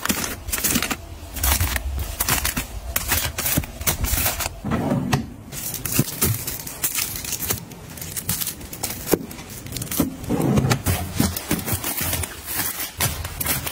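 Plastic-wrapped tissue packs and toilet paper rolls crinkling and rustling as they are pushed and set into place on a shelf and in a drawer, with irregular crackles, taps and sliding scrapes.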